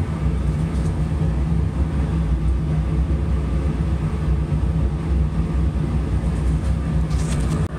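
Steady low mechanical rumble with a constant hum, the ongoing machinery noise of the lab room.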